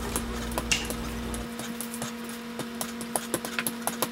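Wooden rolling pin rolling out puff pastry dough on a floured table, with scattered light knocks and clicks of the pin and handles, over a steady low hum.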